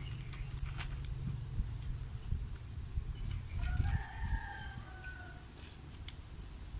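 A rooster crowing once, about halfway through: a single drawn-out call lasting about a second and a half.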